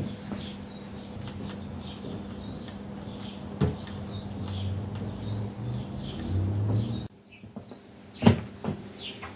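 Ducati 749S front fork being worked by hand while methylated spirits is flushed through it: sharp knocks about three and a half and eight seconds in, and a low rumble for a couple of seconds in the middle. Small birds chirp throughout in the background.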